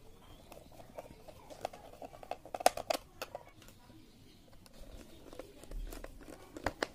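Small screwdriver tightening the fixing screws of a plastic fan-regulator plate into a wooden switchboard: light scraping and scattered clicks of the screwdriver tip in the screw heads. There is a quick cluster of sharper clicks a little before halfway, and a few more near the end.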